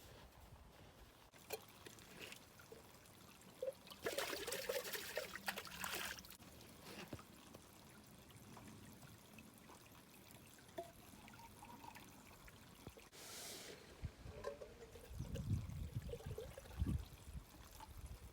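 Water trickling and pouring in short spells, with a few low thumps near the end.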